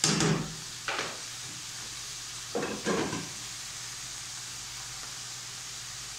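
Suancai (pickled greens) frying in a wok, a steady sizzling hiss, broken by a few short clatters of utensils at the start, about a second in, and twice near the three-second mark.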